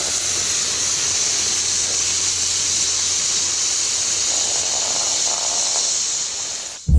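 Water poured onto a freshly scooped lump of molten lava, which hisses steadily as the water flashes to steam. The hiss cuts off suddenly near the end.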